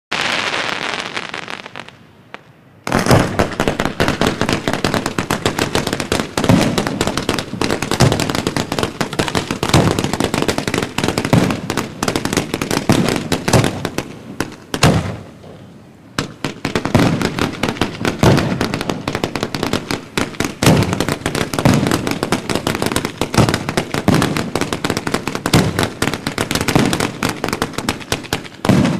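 Fireworks display: a fading crackle, then from about three seconds in a dense, rapid barrage of aerial shell bursts with crackling. There is a short lull at about fifteen seconds before the barrage carries on.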